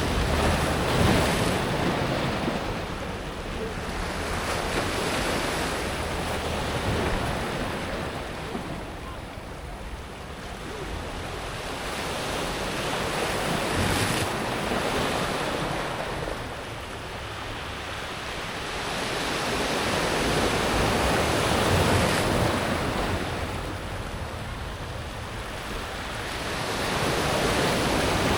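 Sea waves breaking on a pebble beach and washing over the smooth stones, the surf swelling and fading about every seven seconds.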